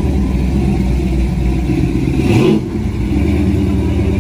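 Engine of a lifted pickup truck running loudly as it drives past, with the revs rising briefly about two seconds in and then easing off.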